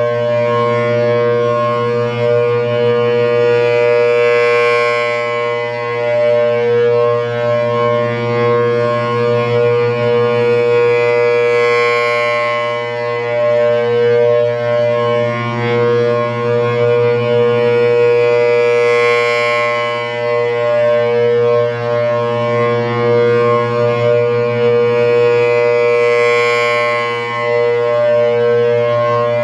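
Federal Signal Thunderbolt 1000AT siren with a 4/5-port chopper sounding a steady alert tone at full speed, a loud two-note chord held at one pitch. It swells about every seven and a half seconds as the rotating horn sweeps past.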